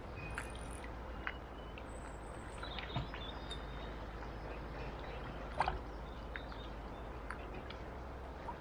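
Steady rush of river water flowing past, under a low wind rumble, with scattered short high bird chirps. A brief sharp sound stands out about five and a half seconds in.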